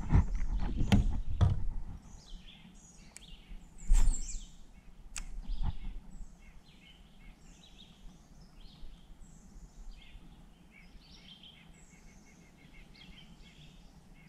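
A few knocks and thumps from a paddle against a stand-up paddleboard in the first two seconds, and one louder thump about four seconds in. Songbirds chirp and call with many short high notes through the rest.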